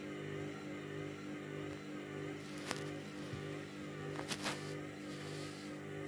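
Candy front-loading washing machine's motor humming steadily as it turns a drum of waterlogged bedding in the interim spin, struggling to get up to spin speed. Three sharp clicks come in the second half, with a brief hiss of sloshing water near the end.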